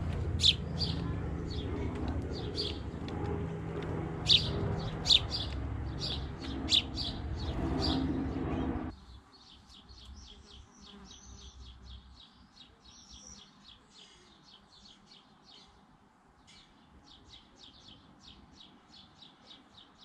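Sparrows chirping, short high calls repeated in quick succession, over a low background rumble. About nine seconds in the rumble cuts off abruptly and the chirping goes on fainter, in a fast, even series.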